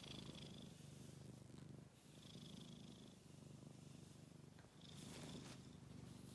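Domestic cat purring softly and steadily, the purr swelling and easing with each breath about every two to three seconds.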